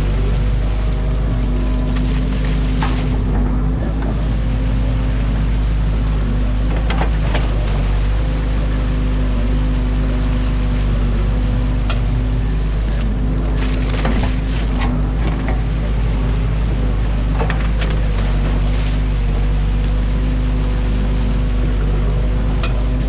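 Excavator's diesel engine running steadily under load while the bucket digs out a beaver dam, with short sharp cracks of sticks and branches breaking several times.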